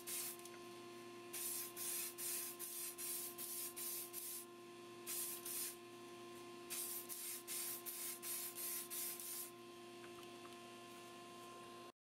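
Spray paint hissing in short bursts, about three a second in several runs, as plastic model car parts are painted, over a steady hum. The sound cuts out abruptly near the end.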